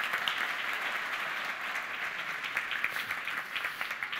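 Audience applauding steadily after a conference talk.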